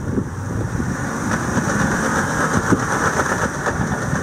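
Jeep Wrangler engine working hard as it climbs a steep sandy hill, tyres churning through loose sand with a steady, gritty noise.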